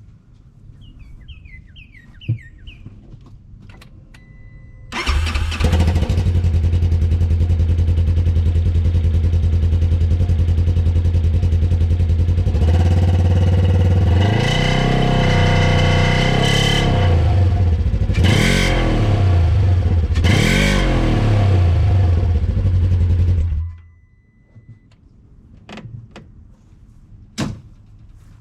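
A 2015 Polaris RZR 900's parallel-twin engine, running through a new SLP dual-outlet exhaust, starts about five seconds in and idles. It is revved several times, with two sharp revs near the end of the run, then switched off with about five seconds left.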